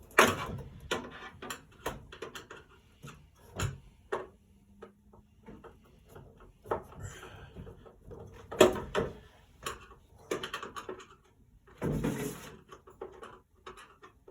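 Irregular knocking, scraping and rattling at a vent, with sharp clicks and a few louder bangs near the start, about two-thirds of the way in and near the end.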